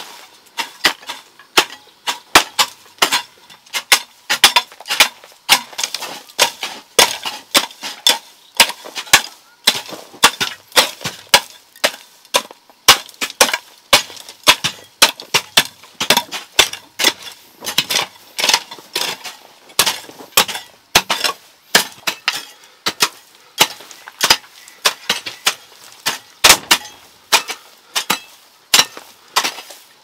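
A tool striking wood again and again: sharp, uneven knocks, about two to three a second, typical of hand work on timber or bamboo.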